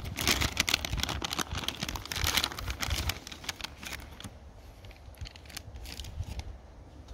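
MRE ration packaging crinkling and rustling as it is handled, densest in the first three seconds, then sparser crackles.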